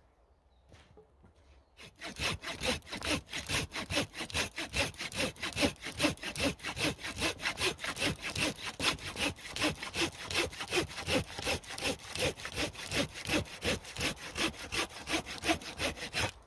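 Folding hand saw cutting through a log, sawing in fast, even strokes, about four or five a second, that start about two seconds in and keep going.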